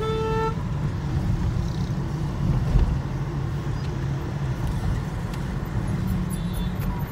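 Steady low engine and road rumble heard from inside a moving car in city traffic. A vehicle horn toots once, for about half a second, right at the start, and a fainter high-pitched horn sounds near the end.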